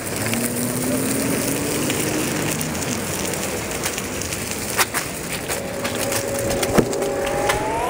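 Steady rough rumble and wind noise on a body-worn camera's microphone during a BMX ride, with a few sharp clicks and knocks and a faint hum that rises in pitch.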